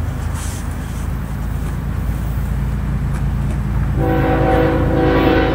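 Approaching Norfolk Southern diesel locomotive sounding its air horn: one loud blast starting about four seconds in, over a steady low rumble.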